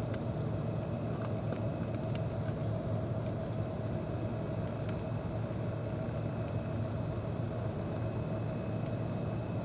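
An engine running steadily at a constant speed: an even low hum with a steady higher tone above it, unchanging throughout.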